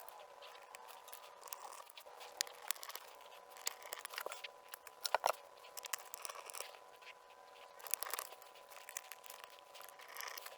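Irregular small clicks and crinkling from hands handling laptop parts and plastic film during reassembly, with a sharper cluster of clicks about five seconds in. A faint steady hum lies underneath.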